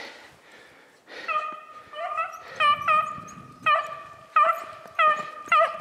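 Beagles baying as they run a hare on scent: a rapid series of about ten short, steady-pitched bays, starting about a second in.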